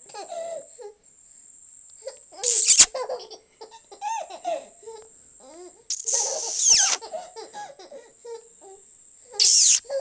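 Baby laughing in short giggles, broken by three louder, high-pitched outbursts of laughter.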